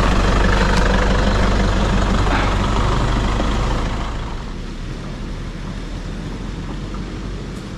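Motor vehicle's engine running with road noise as it drives, with a steady low hum. The sound gets quieter about four seconds in.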